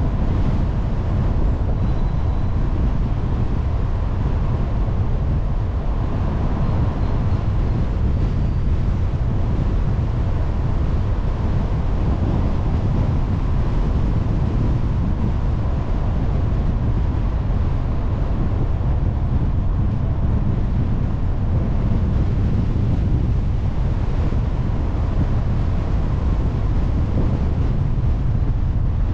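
Steady low rumble of a car driving, tyre and road noise mixed with wind rushing over the microphone.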